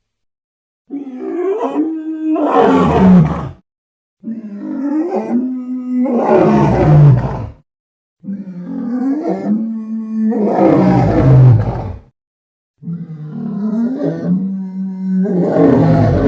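Creature roar sound effect repeated four times, each about three seconds long. Each roar starts as a rising, held cry and breaks into a harsh roar that falls in pitch.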